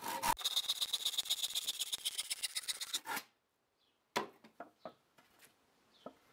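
Hand saw cutting through a softwood pallet board in quick rasping strokes, cutting off the waste end. The sawing stops suddenly about three seconds in and is followed by a single wooden knock and a few light clicks.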